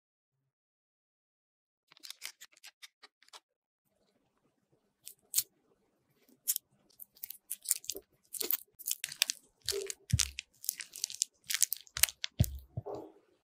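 Silicone spatula pressing and creaming softened butter in a glass bowl: a few light clicks first, then a run of quick scraping, squelching strokes, about two a second, with a couple of low knocks of the spatula against the bowl.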